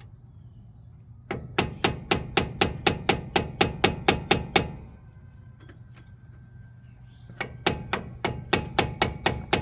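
Hammer blows on metal, driving a punch set in a groove of a stuck nut to turn it loose. The blows come fast, about four a second, in two runs with a pause of a few seconds between.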